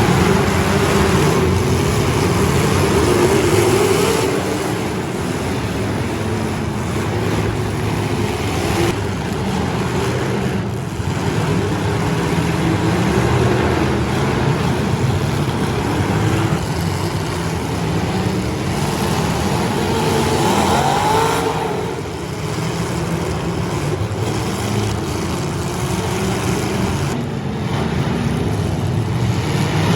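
Demolition derby car engines running and revving, a continuous loud engine din that swells and eases.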